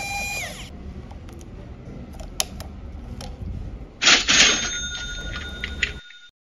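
A small electric screwdriver motor whines and winds down, falling in pitch, as a screw comes out of a phone's midframe, followed by a few light clicks of tools on the plastic frame. About four seconds in there is a loud rasping burst with a bell-like ring of several steady pitches that lasts about two seconds and then cuts off abruptly.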